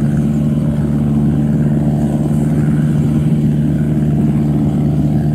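Yanmar AW82V combine harvester's diesel engine, fitted with a Hyundai turbocharger, running loudly and steadily under load while harvesting rice.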